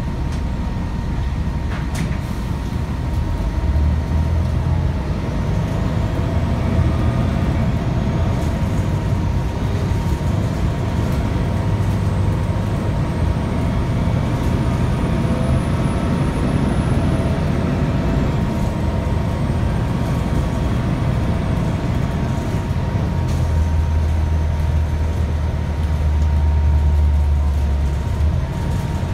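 Interior sound of a 2001 Gillig Low Floor transit bus under way: a steady engine and drivetrain rumble that swells for a few seconds near the end as the bus pulls harder. A faint high whine rises and falls slowly in the middle, over a steady thin tone.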